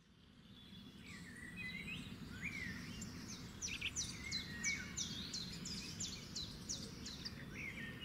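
Faint morning birdsong: several birds chirping, with a run of quick, falling chirps repeated about three times a second through the middle, over a low, steady background hum. It fades in about a second in.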